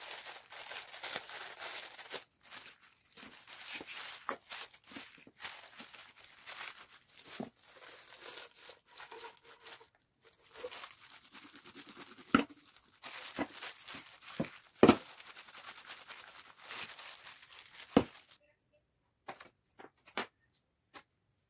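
Disposable plastic food-prep gloves crinkling and rustling steadily as gloved hands knead and roll dough, with a few sharp knocks along the way. The rustling stops a few seconds before the end, leaving only a few faint clicks.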